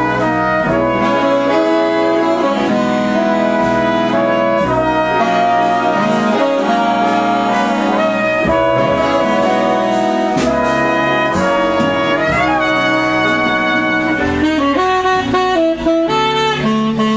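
Jazz big band horn section, trombones, trumpets and saxophones, playing a loud ensemble passage of held chords, with the lines moving more busily in the last few seconds.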